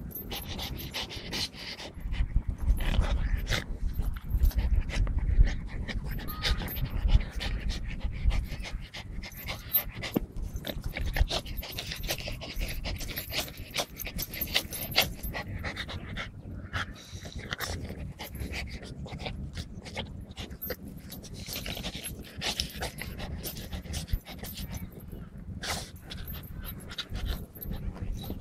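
French bulldog panting hard while tugging at a plush toy held in a hand. The sound is louder, with a heavy low rumble, for the first several seconds.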